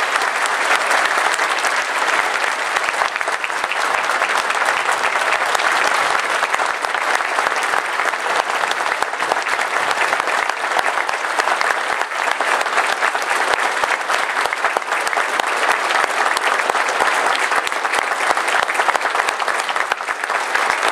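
A large audience applauding: a long, steady round of dense clapping.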